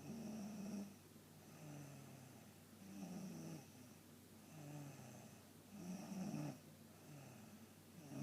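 A person snoring in steady rhythm, a snore about every second and a half, alternating between a higher-pitched and a lower-pitched snore.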